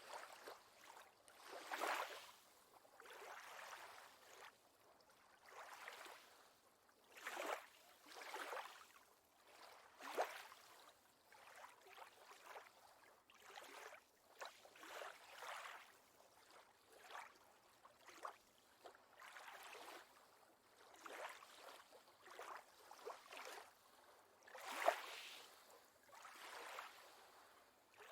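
Faint lake water lapping and sloshing in small, irregular swells, one every second or so, with slightly louder splashes about two seconds in and again near the end.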